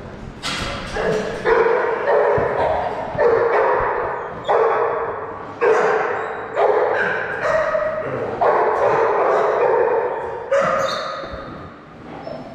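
A dog barking repeatedly, about once a second, each bark trailing off in a long echo off a hard-floored hall.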